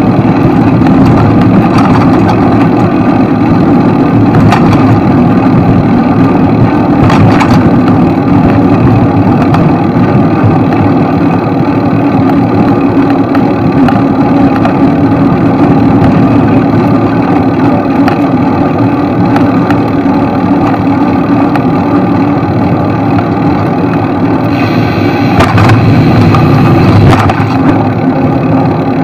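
Continuous road-traffic noise of car engines and tyres, steady and loud, with a few short knocks scattered through.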